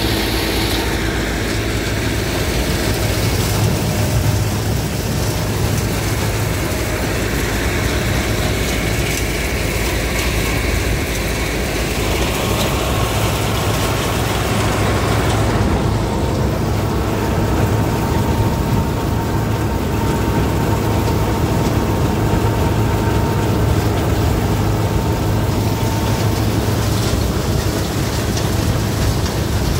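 A steady, unbroken low engine rumble.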